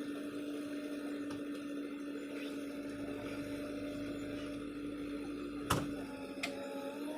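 Small electric motor whirring at one steady pitch, with a sharp click about six seconds in and a lighter one shortly after.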